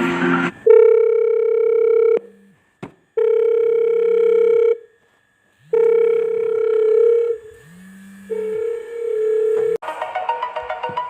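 A steady electronic telephone tone sounds four times, each about a second and a half long with short pauses between. Near the end a melodic phone ringtone tune begins.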